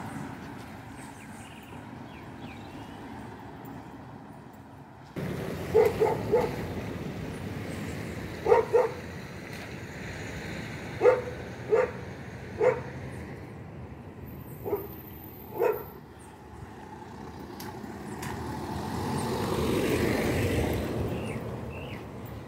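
A dog barking off and on, short barks in groups of two or three, over steady outdoor background noise. Near the end a vehicle passes, swelling and then fading.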